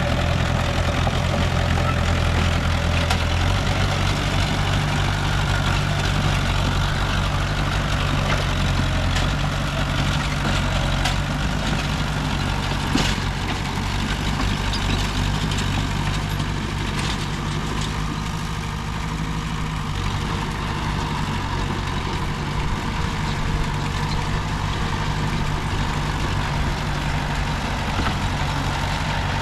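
Heavy diesel engine of earthmoving machinery running steadily, its note changing a few seconds in and again about nine seconds in, with a brief knock near the middle.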